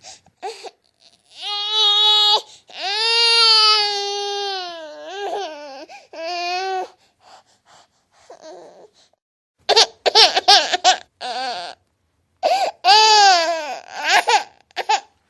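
Baby crying: several long cries one after another, a pause of about two seconds, then short broken sobs and another long cry near the end.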